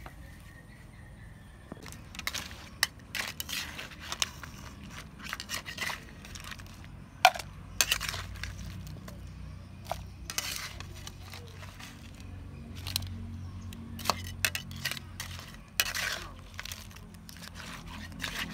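Long metal spatula scraping and clinking against a steel wok as stir-fried crabs in their shells are scooped out, in irregular scrapes and knocks that start about two seconds in.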